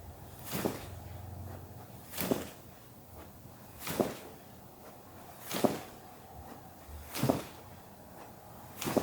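Six short, evenly spaced thuds on a padded treatment table, about one every second and a half or so, as an osteopath pushes rhythmically on the sacrum of a person lying face down in a repeated mobilisation of a stiff sacrum.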